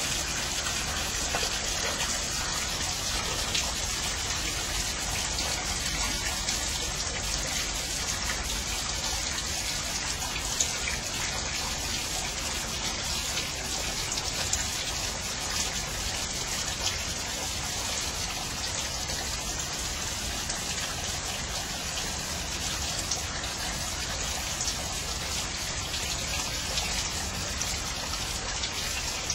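Steady rain falling: an even hiss, with scattered drops ticking close by.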